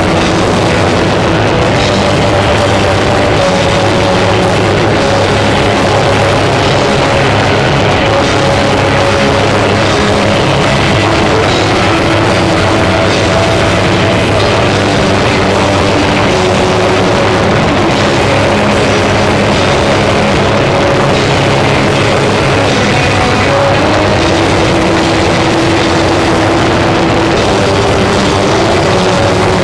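Live experimental noise-rock band playing loud and continuously, with drums and held, distorted guitar and bass notes. The sound is heavily clipped and smeared by overdriven microphones.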